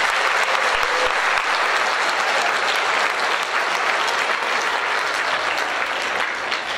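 A large audience applauding steadily, many hands clapping at once, easing slightly near the end.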